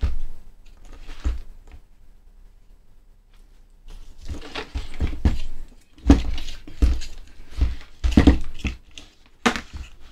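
Handling noise from a mains power transformer being turned over and set down on a bench: a few knocks early, then a busy run of knocks and thuds with rustling from about four seconds in.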